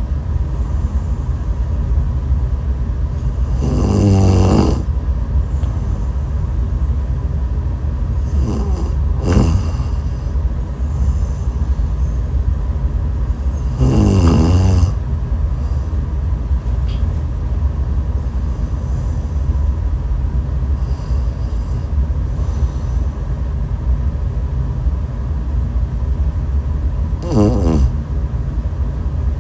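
A woman snoring in her sleep: a few drawn-out, wavering snores several seconds apart, over a steady low rumble.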